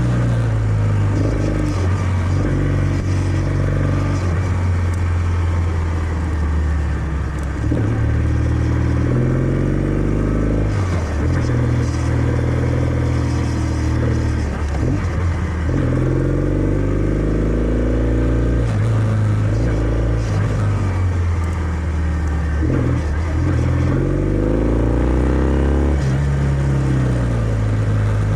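Kawasaki W650's air-cooled parallel-twin engine through its stock exhaust, pulling under way. The pitch climbs as it accelerates through each gear and drops at each of several gear changes.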